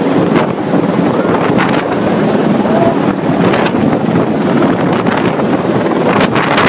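Heavy wind buffeting the microphone in irregular gusts over a loud, steady rushing noise.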